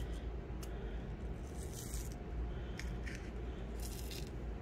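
Tiny glass Miyuki Delica seed beads trickling from a palm into a small clear plastic tube: a light rattling hiss in two short bursts, with a few small clicks. A low steady hum sits underneath.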